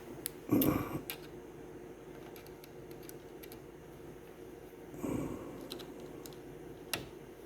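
Scattered small clicks and taps of hands and small tools working on a cassette deck, with two soft louder rustles, one just after the start and one about five seconds in, over a faint steady hum.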